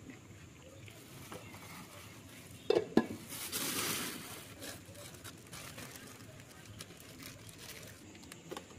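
Kitchenware clatter as bowls and utensils are handled at a street-food cart, with two sharp clinks close together about three seconds in, followed by a brief rustle, like a plastic bag being handled.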